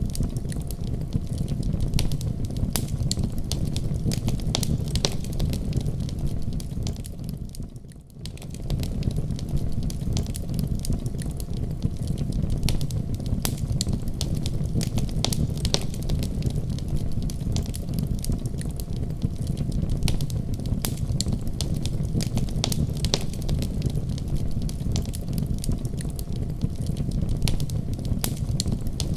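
Wood fire in a fireplace crackling, with frequent sharp pops and snaps over a steady low rumble of the flames. The sound dips briefly about eight seconds in, then carries on as before.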